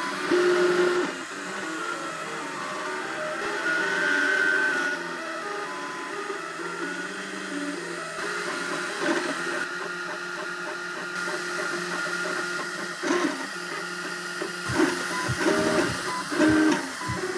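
Cubify Cube 3D printer running a print: its stepper motors whine and hum, the pitch stepping and sliding up and down as the print head changes speed and direction. A few low knocks come near the end.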